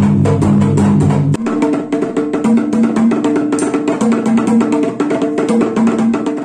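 Music with fast, evenly spaced drumming over held low notes. About a second and a half in, it changes abruptly to lighter percussion over a repeating melodic figure of a few notes.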